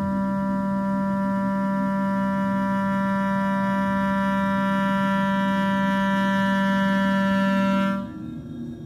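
Contemporary chamber music for clarinet, piano, vibraphone and electronics: a single long, steady low note, swelling slightly, that cuts off abruptly about eight seconds in, leaving a quieter held sound.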